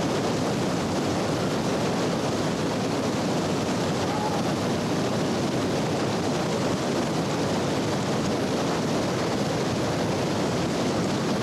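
Whitewater rapids rushing, a steady unbroken noise of churning water.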